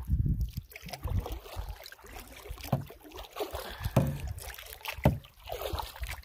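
Paddling a Swift Solo Prospector canoe: separate paddle strokes through the water about every second or so, with water swishing and trickling along the hull.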